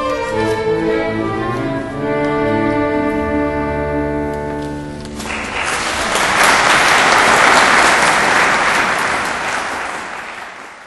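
A small string ensemble led by violin, with guitar, ends a traditional Cusco q'aswa on long held final notes that die away. About five seconds in the audience breaks into applause, the loudest part, which fades out near the end.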